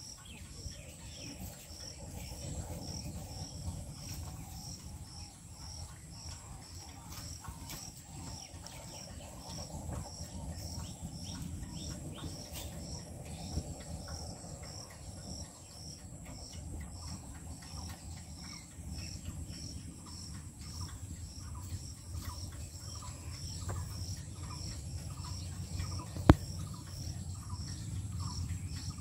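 An insect chirping in a steady high-pitched pulse, a few times a second, over a low rumble, with a bird calling repeatedly in the later part. One sharp knock near the end.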